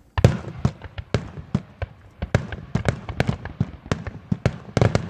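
Fireworks going off: a rapid, irregular string of sharp bangs, several a second.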